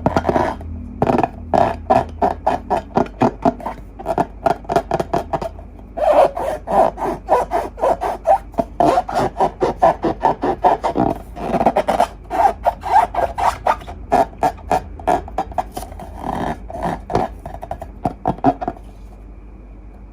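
Slime being worked by hand in a quick, even rhythm of squishing strokes, about three or four a second, with a short break about six seconds in; it stops shortly before the end.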